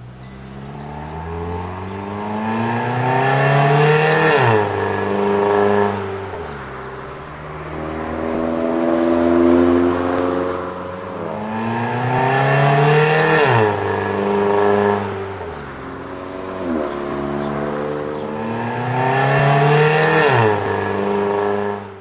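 Toyota Corolla with an aftermarket exhaust accelerating hard at wide-open throttle. The engine's pitch climbs for a few seconds and then drops sharply, three times over.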